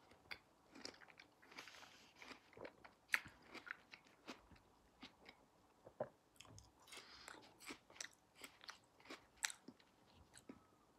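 A person chewing and biting pieces of fruit: faint, irregular crunches and wet mouth clicks.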